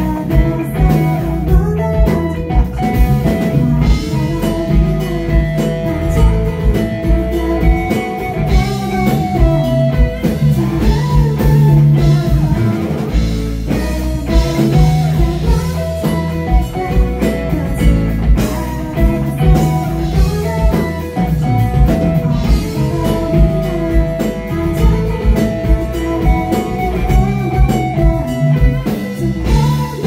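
Live band music with a steady drum beat, keyboard and guitar.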